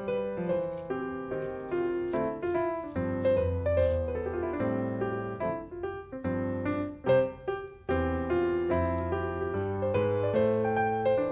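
Background piano music: a gentle melody of sustained notes over a bass line.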